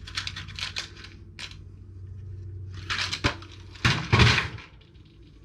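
Small metal hardware clinking and rattling as it is handled, then two louder scraping, crunching handling noises about three to four seconds in.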